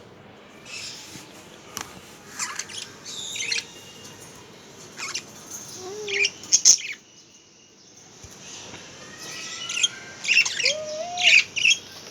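Several small caged pet birds chirping in short, scattered calls, with a brief lull about two thirds of the way through and a busier run of chirps near the end.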